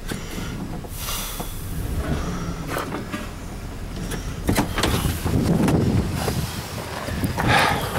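A 2000 truck's 6.0-litre V8 engine running after being got going again, with a few sharp knocks and clatters: one about three seconds in, one near the middle and a louder one near the end.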